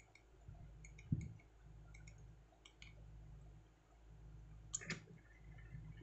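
Faint clicks of the small push buttons on a 4-digit digital timer relay board being pressed one at a time, several separate clicks, over a faint steady low hum.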